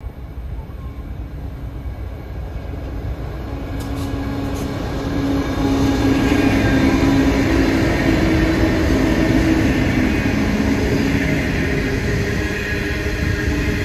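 Loaded coal train hauled by three diesel-electric locomotives, two Pacific National 90 class (GE Cv40-9i) and an LDP class, approaching and passing. The engines' drone grows louder until the locomotives go by about six seconds in. The loaded coal hoppers then roll past with a steady rumble of wheels on rail.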